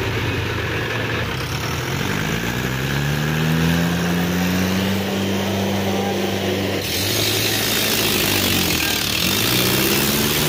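Tractor diesel engines running hard under load, pulling against each other on a taut chain. The engine pitch rises about two seconds in, holds steady, then dips and climbs again near the end.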